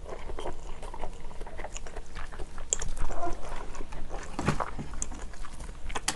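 Close-miked chewing of a large mouthful of rice and kimchi stew: irregular soft, wet smacks and clicks from the mouth.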